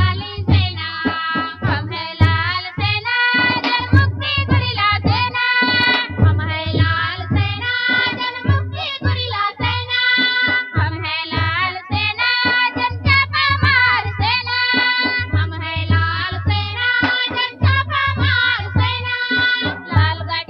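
A song: singing voices over music with a steady beat.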